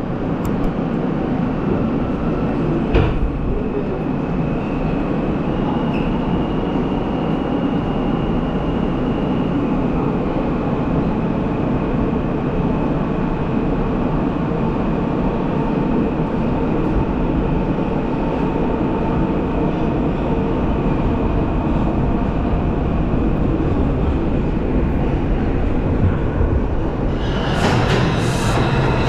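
New York City subway train running, heard from on board: a steady rumble of wheels on rail with a high whine and a single clank about three seconds in. Near the end the sound changes to that of a train pulling into a station platform.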